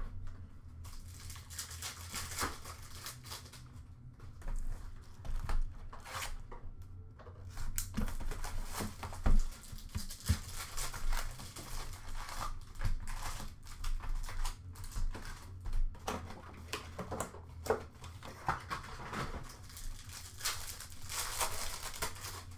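Hockey card packs being torn open by hand, their wrappers crinkling and crackling in irregular bursts, with cards shuffled and handled, over a low steady hum.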